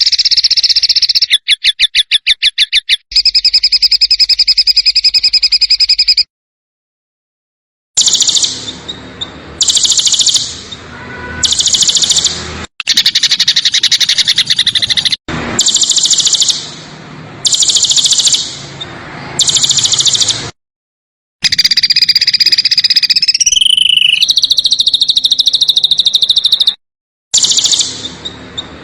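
Spliced recordings of small songbirds giving harsh, rapid, buzzy trills, the rough 'tembakan kasar' calls used as masteran for training songbirds. A long, dense trill is followed by a run of short high bursts about every second and a half, then another long trill, with abrupt silences at the splices.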